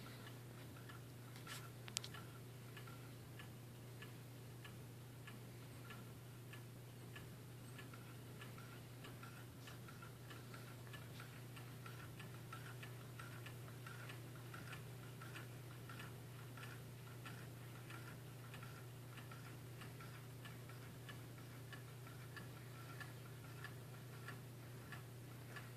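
Two low-temperature-difference Stirling engines running on hot water, their linkages giving a faint, steady ticking of a few clicks a second over a low hum. One sharper click comes about two seconds in.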